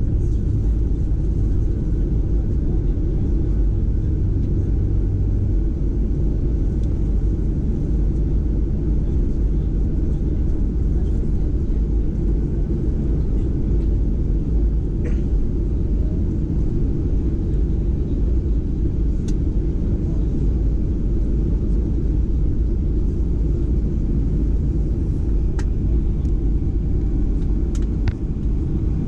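Steady low rumble of a Boeing 737-800 taxiing, heard from inside the passenger cabin. A low hum drops away about five seconds in.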